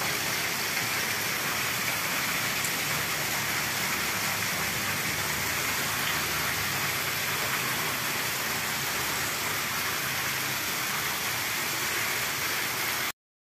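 Water pouring from a pipe in a concrete wall and splashing onto a wet concrete floor, a steady rushing hiss. It cuts off suddenly near the end.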